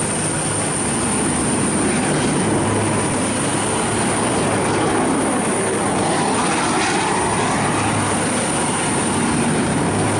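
V/Line VLocity diesel multiple unit running at the platform, its diesel engines giving a loud, steady rumble, described as making quite a bit of noise.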